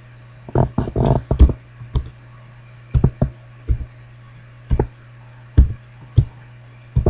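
Computer keyboard keys typed slowly and unevenly, a quick cluster of presses near the start and then single loud clicks close to the microphone, over a steady low hum.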